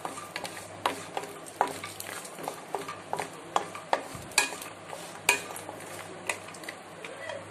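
Wooden spatula stirring cashews and almonds around a non-stick pan as they roast in a little ghee: irregular scrapes and the clicks of the nuts knocking against the pan, with a faint sizzle underneath.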